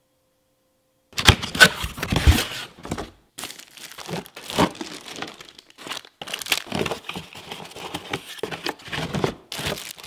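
Plastic packaging bags crinkling and a molded pulp packing tray rustling as parts are lifted out of a box, starting about a second in as an irregular run of crackles.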